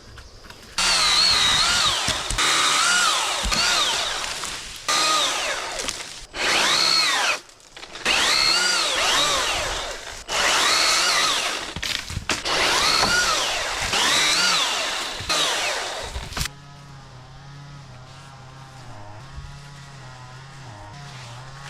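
Cordless electric power tool run in about eight one-to-two-second bursts, its motor whine rising and falling in pitch with each burst. The bursts stop about three-quarters of the way through, leaving a quieter, steady, wavering hum.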